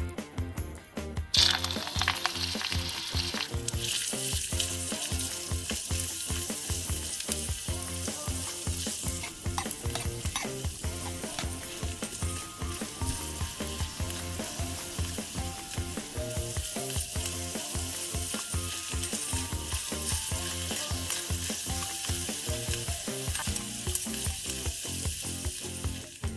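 Ground meat frying in hot oil in a tiny iron wok. A loud sizzle bursts up as the meat goes in about a second in, then a steady sizzle runs on, with small scrapes as it is stirred.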